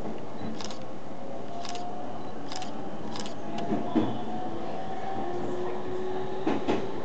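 Meitetsu electric train running, heard from the front of the train: a steady rumble with a faint whine slowly rising in pitch, sharp clicks every second or so, and two louder double knocks, one about halfway through and one near the end, typical of wheels passing over rail joints.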